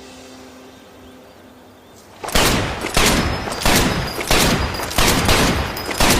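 Luger P08 pistol firing a rapid string of single shots, about seven, roughly two thirds of a second apart, starting a couple of seconds in. Each shot has a short echoing tail.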